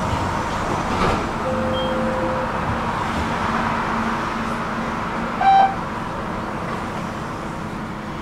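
Tram running steadily, with a light click about a second in, a faint whine for about a second after it, and a short, loud toot about five and a half seconds in.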